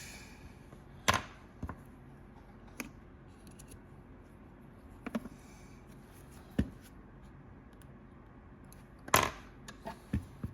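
Scattered sharp clicks and taps, about seven over ten seconds, the loudest about a second in and about nine seconds in, over a faint steady hum.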